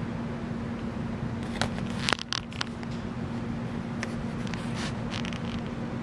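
Fanimation Palisade dual-head ceiling fan running: a steady low hum under a constant wash of moving air. A cluster of brief scrapes and clicks comes about two seconds in, with a few more a couple of seconds later.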